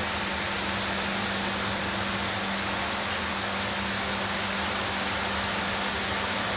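Steady, even rushing noise with a constant low hum underneath, unchanging throughout.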